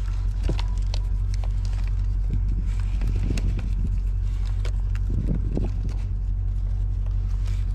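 Faint rustling and small clicks of a paper tag and plastic tie being handled and fastened on a bear carcass in a cardboard box, over a steady low rumble.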